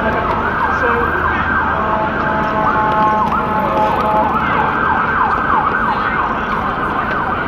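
Emergency vehicle siren sounding in a fast yelp of repeated rising-and-falling sweeps, changing for a second or so in the middle to steady held tones, over a steady rush of street and riding noise.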